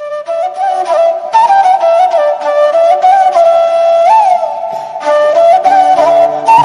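Background music: a flute melody with sliding, ornamented notes, joined by a low accompaniment about five seconds in.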